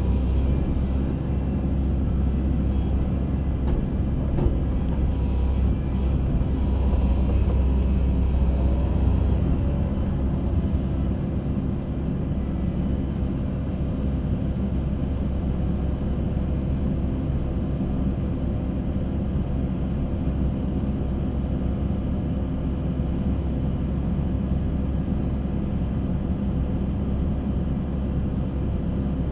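Concrete mixer running: a steady low engine rumble with a constant hum.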